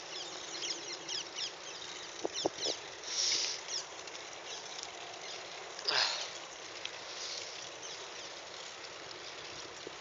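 Many short, high chirps of small birds over a faint steady hiss of bicycle tyres on a paved path, with a brief louder rustle about six seconds in.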